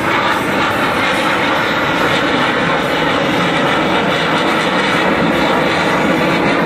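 Jet noise from a Boeing F/A-18 Super Hornet's twin General Electric F414 engines as it flies overhead in a display: a loud, steady rushing sound.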